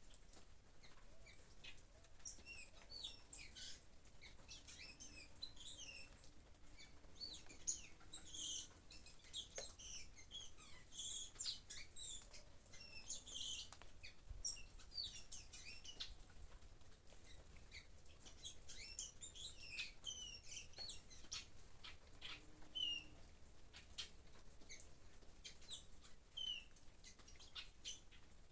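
Small birds chirping in many short, high calls over the patter of light rain.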